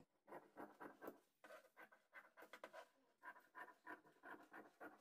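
Faint, quick snips of large tailoring scissors cutting through lining cloth, short strokes about four a second with a few brief pauses.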